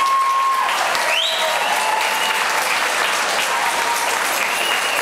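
Audience applauding steadily, with the held last note of the music stopping under a second in.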